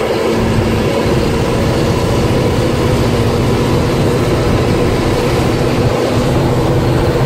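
Mercedes-Benz 2638 truck's diesel engine and road noise heard from inside the cab while driving at speed: a loud, steady drone with a low hum.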